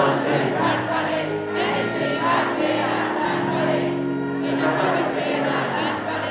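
Live concert music: a male singer's vocals over a band, with held chords underneath.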